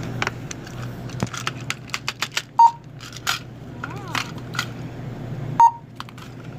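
Barcode scanner at a shop checkout beeping twice, about three seconds apart, amid clicks and rustles of goods being handled and scanned, over a steady low hum.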